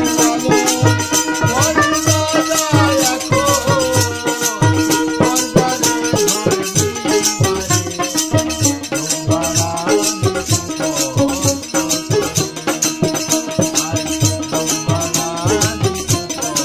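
Bengali folk music (polli giti) played without singing: a steady drum beat with a fast shaker-like rattle over a held drone and a wavering melody line.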